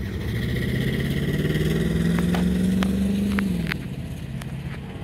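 A road vehicle passing on a nearby road: its engine hum grows louder, then drops in pitch and fades as it goes by, about three and a half seconds in.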